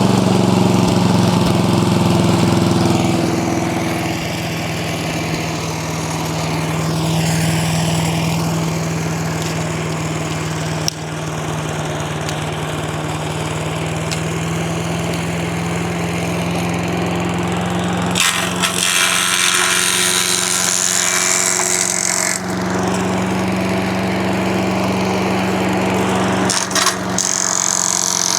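The 8 HP Briggs & Stratton single-cylinder engine of an MTD Yard Machine chipper/shredder running steadily at speed, its pitch sagging slightly a few seconds in. Past the middle, for about four seconds, and again briefly near the end, a loud rushing, clattering noise rises over it as sticks are fed through and shredded.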